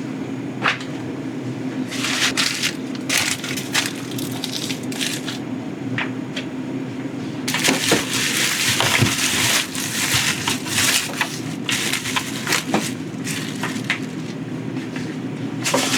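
Bursts of crinkling, rustling handling noise over a steady low hum, loudest from about halfway through for a few seconds.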